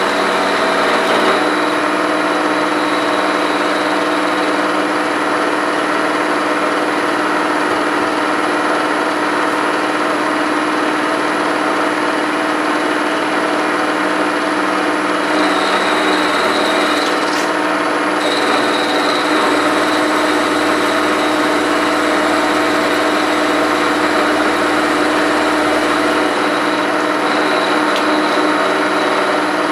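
Milling machine running with an end mill cutting an angle along the top edge of a metal block: a steady machining noise with a constant hum and a high whine.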